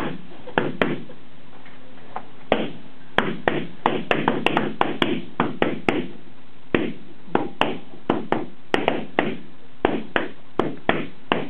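Latex party balloons being popped with a pin one after another: an irregular string of sharp pops, coming in quick flurries with short lulls between them.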